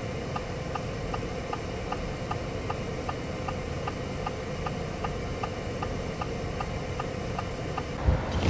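Vehicle's hazard-light flasher clicking in an even rhythm, about three clicks a second, over steady low cabin and road noise.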